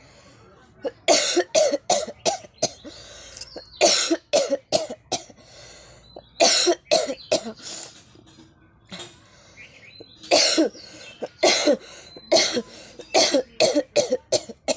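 A person coughing deliberately, in repeated bouts of several sharp coughs with short pauses between.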